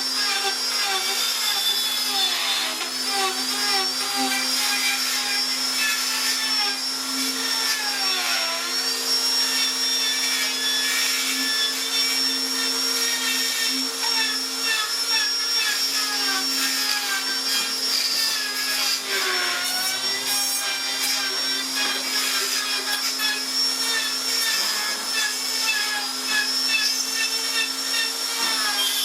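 Electric power tool motor running continuously on wood, its pitch sagging several times as it is pressed into the work.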